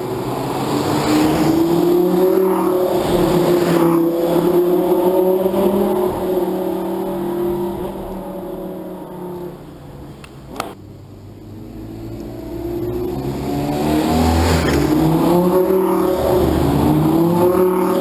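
Lamborghini sports car engines revving as the cars accelerate, pitch rising and falling through gear changes. The sound drops lower about halfway through, with a single sharp click, then builds again as another car approaches.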